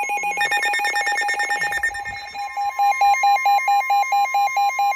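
NOAA weather radios sounding their electronic alert alarms for an incoming warning. First comes a fast pulsing beep, then about two and a half seconds in a slower beep of about four a second over a steady tone.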